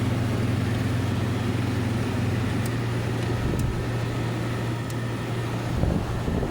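1998 Kenmore window air conditioner running: a steady low compressor hum over fan and air noise. The hum drops about two and a half seconds in and fades near the end as the unit is being switched off.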